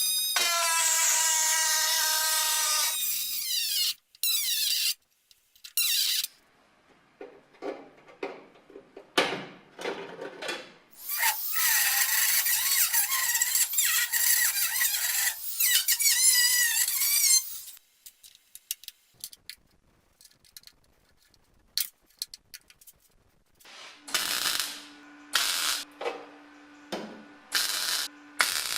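Rotary tool with a small cutting disc cutting sheet steel, in several bursts: a high-pitched whine, then a wavering squeal as the disc bites into the metal, with pauses between cuts. Near the end come short bursts over a steady low hum.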